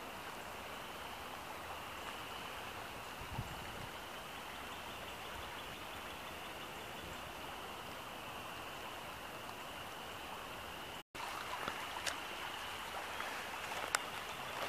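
Rain-swollen woodland creek running with a steady rush of water. About eleven seconds in the sound drops out for an instant and comes back a little louder and closer, with a few sharp ticks over the flow.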